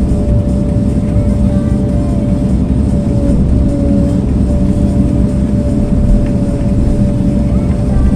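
A machine running steadily: a constant low rumble with one held, slightly wavering whine on top.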